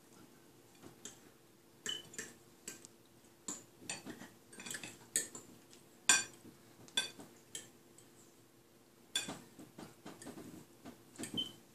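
Metal forks clinking and scraping against ceramic plates during a meal: an irregular run of sharp clinks, a few ringing briefly.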